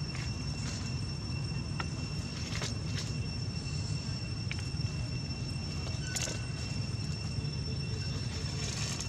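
Outdoor ambience: a steady low rumble under a thin, steady high-pitched whine, with a few short crackles of dry leaves as the macaques move over the ground.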